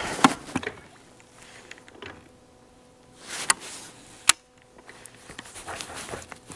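Mostly quiet, with a few sharp clicks from fishing gear being handled on a bass boat's front deck. A short rush of noise leads into one click about three and a half seconds in, and the sharpest click comes about a second later.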